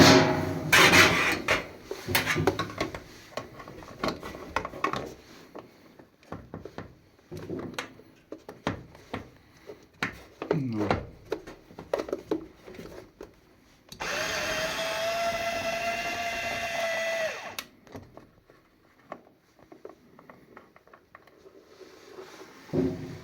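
Scattered clicks and knocks of hands and tools working on a washing machine's door lock, with a power drill running steadily for about three and a half seconds past the middle.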